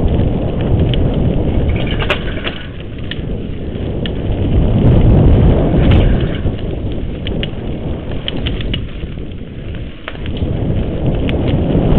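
Wind buffeting the microphone of a camera riding on a mountain bike down a dirt singletrack: a heavy low rumble that swells and fades, with scattered clicks and rattles from the bike over rough ground.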